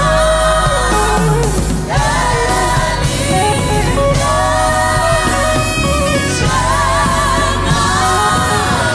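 Gospel choir of men's and women's voices singing in close harmony over instrumental backing, with long held notes that slide between pitches and a wavering held note about two-thirds of the way in.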